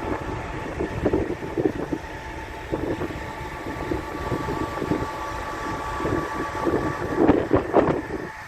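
Wind and moving water heard together, with irregular surges and a faint steady hum in the background.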